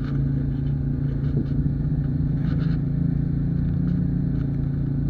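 An engine running steadily at idle: a low, even drone with a few faint light clicks over it.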